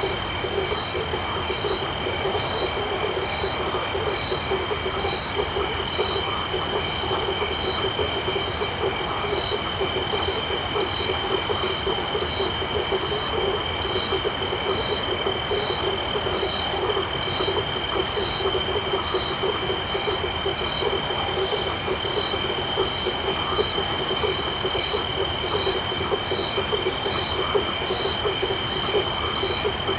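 Tropical night chorus of frogs and insects: dense, fast low pulsing from frogs, steady high insect drones, and a high chirp repeating a little more than once a second.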